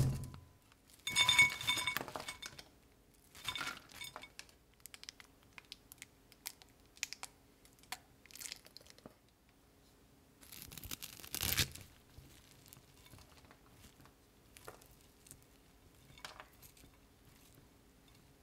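Food-handling sounds on a plate: a knock at the start as a plastic bowl comes off a mound of rice, then intermittent crinkling and rustling of shredded cabbage with small clicks and clinks. The loudest rustles come about a second in and again around eleven seconds in.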